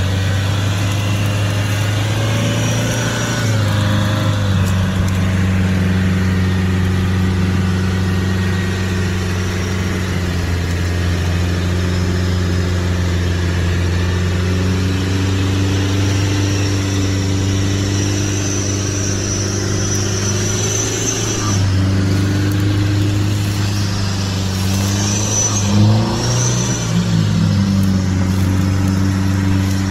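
Nissan Patrol Y61 engine running under load while stuck in mud and being pulled out on a tow line. It holds a steady low note that rises and falls a few times as it is revved, with a sharper rev near the end.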